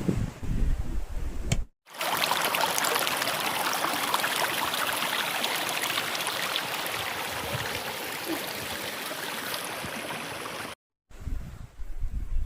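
Rushing water of a mountain stream: a steady, even hiss that cuts in about two seconds in and stops abruptly near the end. Before and after it comes a low, gusty rumble.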